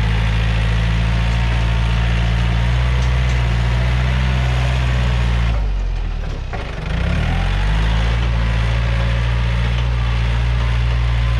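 Yanmar EF514T tractor's 51-horsepower diesel engine running steadily. A bit past halfway it dips and goes quieter for about a second, then revs back up to its steady note.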